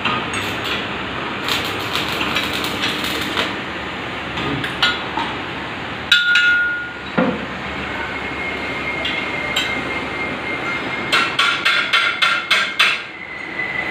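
Metal fabrication workshop din: a steady noisy background with scattered metal knocks and clinks, and a thin high whine from about midway. A quick run of about six hammer-like metal strikes comes near the end.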